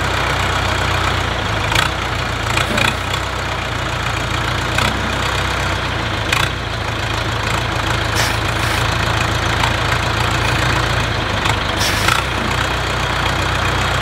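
Diesel engine of a new XCMG backhoe loader running steadily at low revs as the machine creeps down a steel trailer ramp, with a few short clunks along the way.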